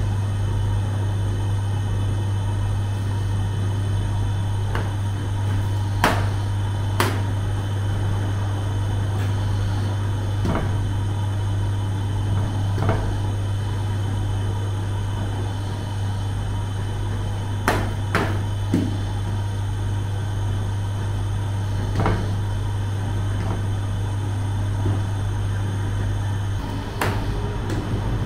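Bakery oven running with a steady low hum, with a few sharp knocks now and then.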